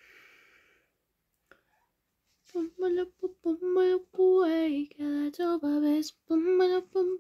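A girl singing a tune to herself without clear words, held notes stepping between a few pitches in short phrases, starting about two and a half seconds in after a short breathy exhale.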